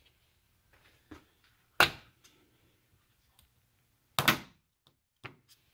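Plastic push-pin retainer clips in the radiator support cover snapping as they are popped by hand: two sharp snaps about two seconds apart, with a few lighter clicks.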